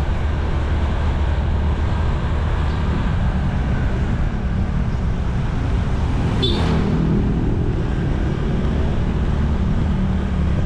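Honda ADV160 scooter's single-cylinder engine running at a steady cruise, with road and wind noise. An oncoming motorcycle passes about two-thirds of the way through.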